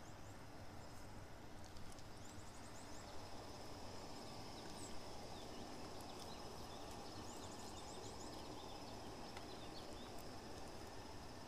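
Faint outdoor ambience: a steady noisy hiss with a thin, steady high whine and a few short runs of quick, high chirps.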